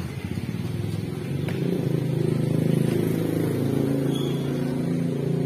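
Motorcycle engine idling, a steady low hum that rises a little about two seconds in and then settles.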